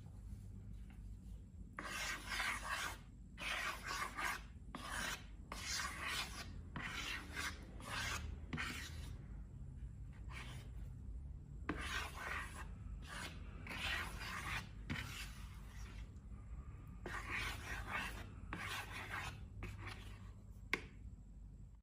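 Slime being mixed and scraped: runs of short scraping strokes, about one or two a second, broken by brief pauses.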